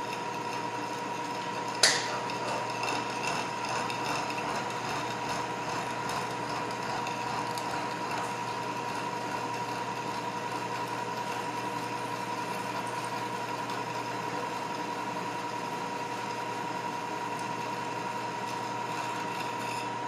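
Metalworking machine tool running steadily with a constant whine, and a single sharp click about two seconds in.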